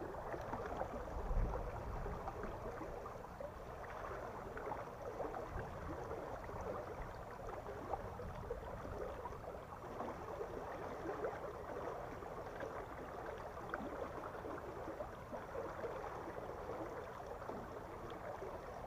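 Steady rushing and gurgling of river water flowing through a small sluice gate, with one brief low thump about a second and a half in.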